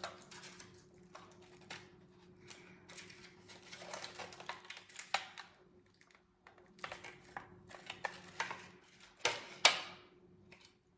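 Hands handling the plastic pieces of a make-your-own candy kit: scattered small clicks and short crinkly rustles, with two sharper clicks about nine and a half seconds in, over a faint steady hum.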